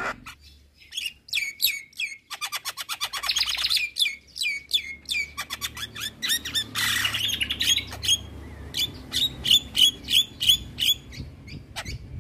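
Javan myna singing a rapid series of sharp, downward-sliding whistled notes, with a fast rattling run about three seconds in and a harsh squawk midway.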